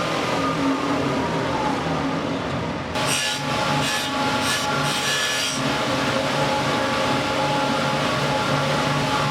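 Wood being sanded: a steady abrasive rasp with a repeating stroke rhythm, growing brighter and scratchier about three seconds in.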